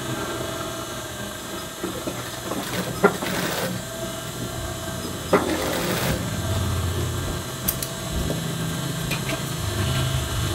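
Industrial sewing machine running, its motor humming steadily, with a few short noisy stretches and sharp clicks as fabric is stitched and handled under the needle.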